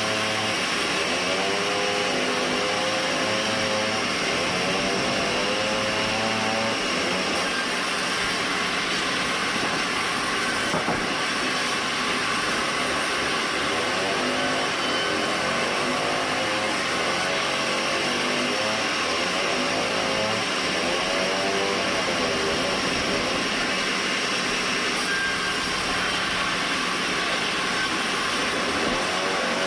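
Sawmill band saw running steadily, with a constant high whine over a lower drone whose pitch wavers up and down. A brief knock comes about eleven seconds in.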